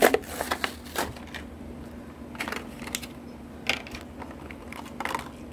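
Clear plastic toy package crackling and clicking as it is pried open and a die-cast monster truck is taken out: a sharp crack at the start, then scattered clicks.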